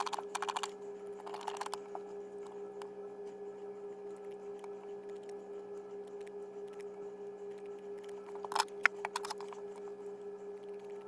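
Scissors snipping through foam-rubber non-slip shelf liner in short crackly runs of cuts, a couple near the start and the loudest about eight and a half seconds in, over a steady low hum.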